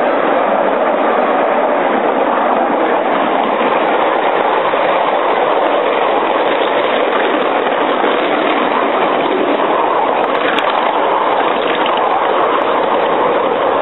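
7-1/4 inch gauge miniature railway train running, a loud, steady rolling noise that does not let up.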